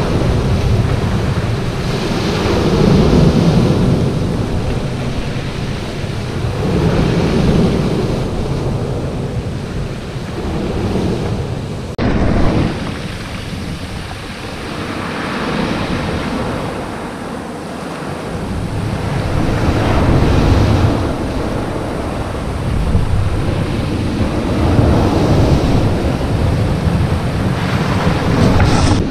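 Sea waves breaking and washing up over a shingle beach, the surf swelling and fading every few seconds.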